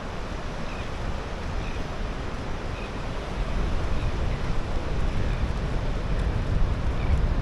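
Wind buffeting the microphone, a steady low rumble that grows stronger toward the end, over a wash of water. Faint short high chirps sound about once a second.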